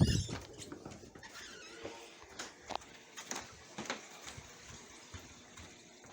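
Handling noise and footsteps as someone moves through a room carrying the recording device: a loud thump at the start, then scattered light knocks and clicks over a faint hiss.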